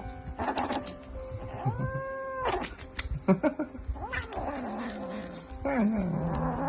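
A cat yowling in several drawn-out calls, some of them sliding down in pitch.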